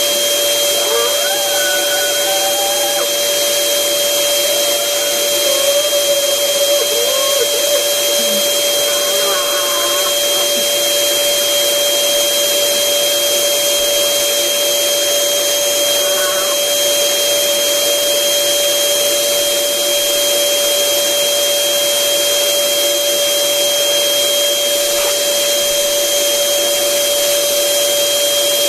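Electric air blower running steadily with a constant whine, pumping air into a giant rubber balloon.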